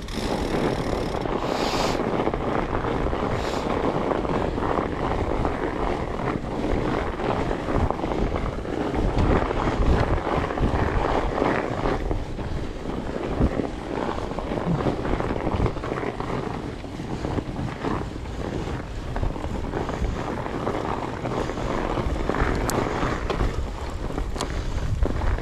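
Wind rushing over an action camera's microphone during a fat-bike ride: a steady, loud rush with a few short knocks.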